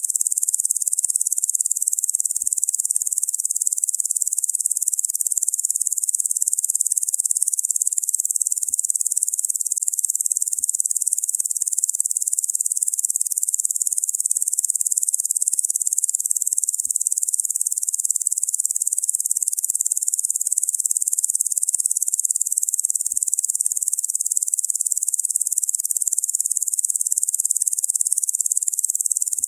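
Locusts buzzing: a continuous, steady, high-pitched insect drone with no breaks or changes in level.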